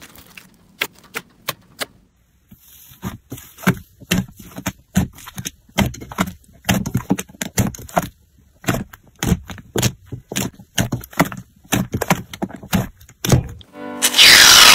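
Slime being squeezed and pressed by hand, giving a run of irregular crackles, pops and clicks. About a second before the end, a loud rushing noise starts suddenly.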